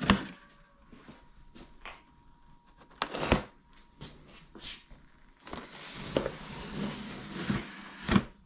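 Utility knife blade slicing through the packing tape on a cardboard box, with handling knocks on the box: a sharp knock at the start, a louder bump about three seconds in, then a long steady rasp of the blade dragging along the taped seam from about halfway on.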